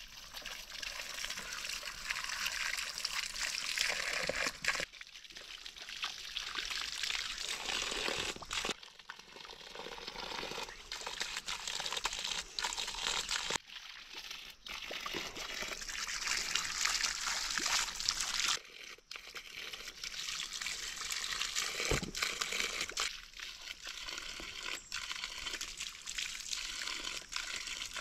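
Water pouring and splashing in stretches of a few seconds, with brief breaks between them.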